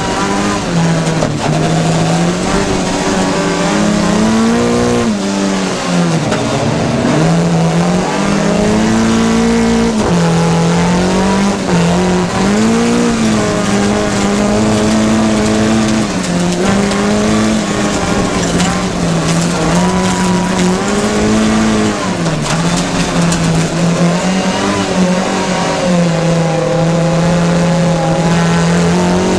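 Rallycross race car's engine running hard through a heat, its pitch dropping and climbing again every few seconds as the car lifts off and accelerates between corners, with some tyre squeal.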